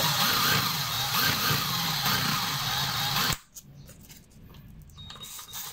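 Power drill spinning a Yamaha Sniper 150 engine valve while emery cloth is pressed against its head to scour off carbon: a steady whirring and scraping that stops abruptly a little over three seconds in.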